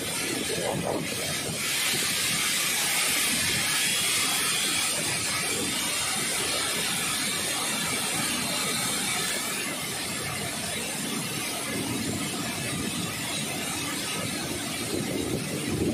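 Steady rumble and constant hiss of heavy industrial machinery at an iron ore pellet plant, with no breaks or distinct impacts.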